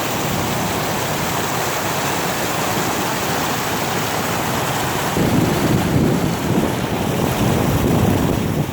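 River running high and rushing after heavy rain, a steady loud wash of water. From about five seconds in, gusty wind buffets the microphone with a low rumble.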